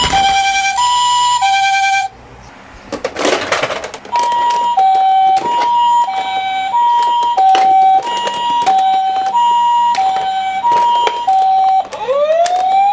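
Toy ambulance's electronic two-tone 'pee-poh' siren, alternating high and low notes about two-thirds of a second each. It cuts out about two seconds in, leaving a brief rattle. It starts again about four seconds in and runs with small plastic clicks and rattles. Near the end a rising siren wail sweeps up in pitch and holds.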